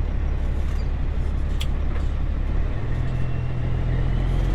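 Grain truck's diesel engine running with a steady low drone. About three seconds in its pitch steps up as it pulls ahead, with a faint rising whine above it. There is one short click partway through.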